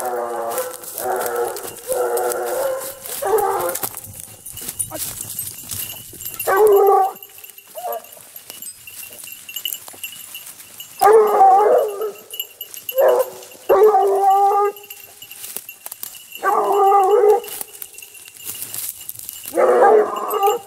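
A pack of bassets bleus (blue-ticked scent hounds) giving tongue on a scent. Their bays come in drawn-out calls, one after another for the first few seconds and then in single bays or short groups every few seconds.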